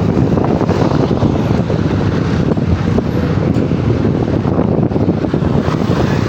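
Bicycle rear hub freehub ticking in a rapid, continuous ratchet, with heavy wind noise on the microphone.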